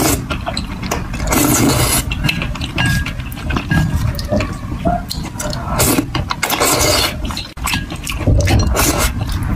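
Close-miked eating sounds: thick noodles in a thick spicy sauce slurped loudly, twice in long wet rushes, with chewing and wooden chopsticks stirring and scraping through the sauce in the bowl.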